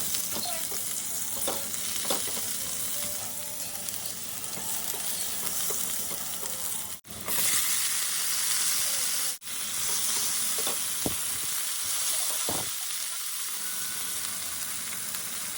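Food sizzling in a hot frying pan, a steady hiss that is briefly cut off twice, with a few light knocks as it is stirred.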